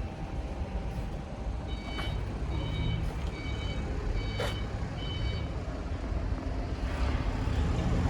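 SDEC diesel engine of a 300 kW generator set running with a steady low rumble. Between about two and five and a half seconds in, five short high-pitched beeps sound, evenly spaced.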